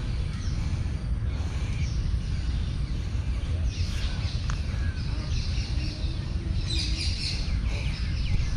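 Outdoor birds chirping and calling in many short notes, busier in the second half, over a steady low rumble.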